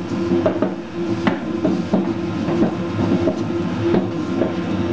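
Commercial dough mixer running at a slightly raised speed, kneading a focaccia dough of flour, water, yeast and oil, with a steady motor hum and irregular clicks and knocks from the bowl.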